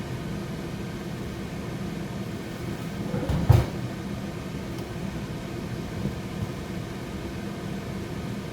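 Steady low hum of kitchen background noise, with a single clunk about three and a half seconds in.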